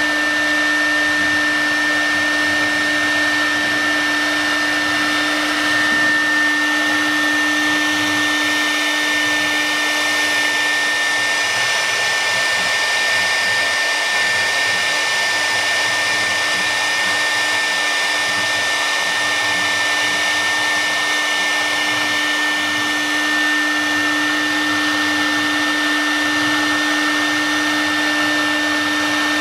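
CNC wood router carving a relief into an MDF board, its high-speed spindle running steadily: a constant whine with two steady tones over the hiss of the bit cutting.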